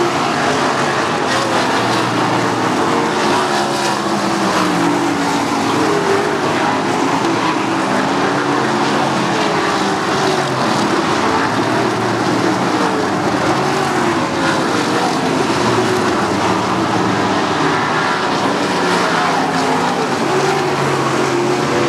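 A pack of 360 sprint cars running at racing speed. Their V8 engines overlap in a steady, loud, continuous drone that waves up and down in pitch as the cars throttle through the turns.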